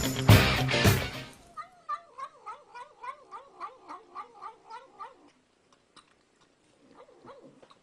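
A cat giving a rapid run of about a dozen short, wavering yowls, roughly three a second, for nearly four seconds after loud rock music cuts off about a second in.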